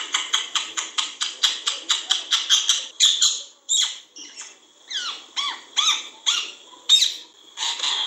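Rose-ringed parakeet chirping in a rapid, even run of short notes, about five a second. About three seconds in it changes to a string of separate squawky calls whose pitch rises and falls.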